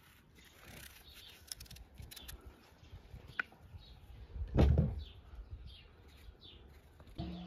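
Pumpkin being peeled with a kitchen knife by hand, faint small scrapes and ticks, then a soft thud about four and a half seconds in as a piece drops into a plastic bowl. Small birds chirp in short falling notes in the background during the second half.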